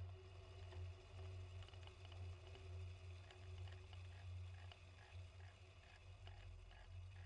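Faint, muffled low rumble of a Cessna 185's engine and airflow during a runway roll. Faint regular ticks, about four a second, come in from about halfway through.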